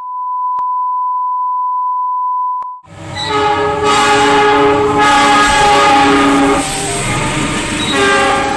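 A steady high test-tone beep with two short clicks, cutting off abruptly after nearly three seconds. Then a diesel locomotive's horn sounds in long multi-note blasts over the rumble of a passing train.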